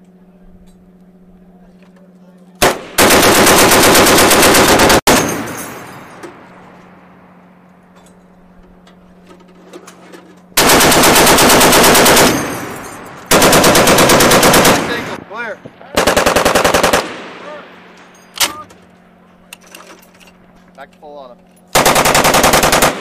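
M2 .50-calibre heavy machine gun firing fully automatic: five bursts of one to two seconds each, with one lone shot between the fourth and fifth, over a steady low hum.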